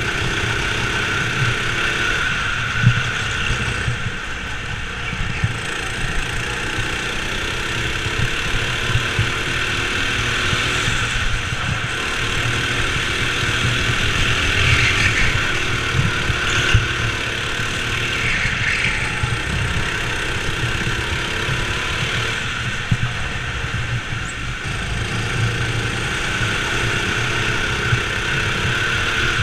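Go-kart engine running under the driver, its pitch rising and falling again and again as it revs out of corners and backs off into them.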